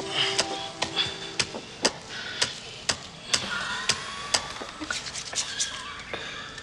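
Pestle pounding in a mortar, sharp knocks about twice a second, as herbs are crushed for a homemade medicine.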